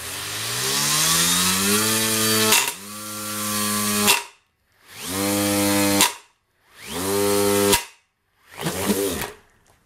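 Brushless RC motor with a factory-moulded plastic propeller at full throttle: a rising whine spools up over the first two and a half seconds, then it runs in separate bursts of about a second and a half, each cut off sharply with a crack as the spinning blades chop into a pine board.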